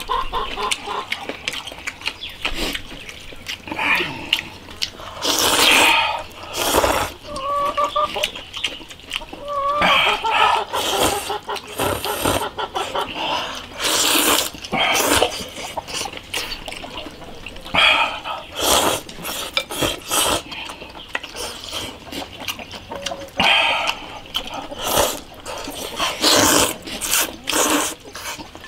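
Noodles and soup being slurped in big mouthfuls, with chewing between. Loud, wet slurps come every second or two.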